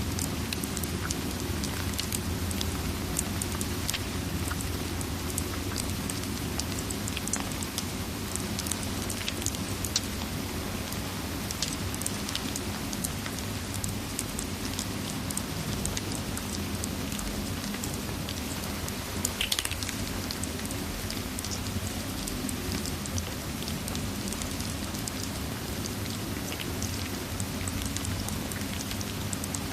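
Steady rain ambience mixed with a fireplace: an even wash of rainfall with a low rumble underneath, and scattered sharp crackles and pops, one louder pop about two-thirds of the way through.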